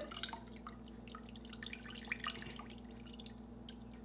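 Broth dripping from a perforated stainless-steel colander of strained chicken and vegetable solids into the pot below, a scatter of small drips that thins out after about two seconds.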